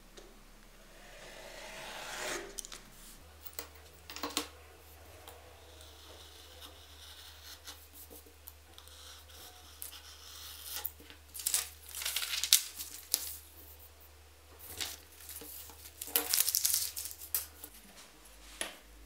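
Utility knife slicing through a paper pattern along a steel ruler on cardboard: a drawn, swelling cutting stroke near the start, then later bursts of scraping and sharp clicks and knocks as the blade, ruler and paper are handled.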